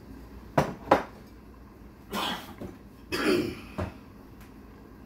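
Kitchen handling sounds as a glass bottle of soy sauce is fetched: two sharp knocks about a third of a second apart, then two short rough noisy bursts, and a last light knock as the bottle is set on the stone countertop.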